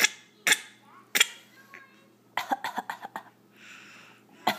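Coughing: three sharp coughs about half a second apart, then a quick run of short coughing pulses, a breathy exhale, and another run starting near the end.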